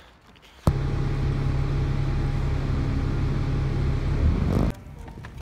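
A motor vehicle's engine running steadily, a low hum over a rumble. It cuts in suddenly less than a second in and cuts off abruptly shortly before the end.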